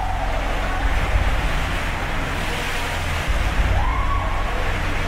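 Water in a cruise ship's indoor swimming pool sloshing and surging as the ship rolls in heavy seas, over a deep steady rumble. A short wavering tone rises and falls about four seconds in.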